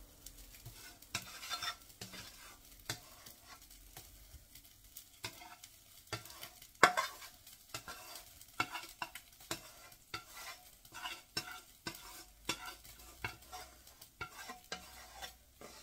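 Spatula stirring and scraping food in a pan on the stove: a run of irregular scrapes and knocks, with one sharp clack about seven seconds in.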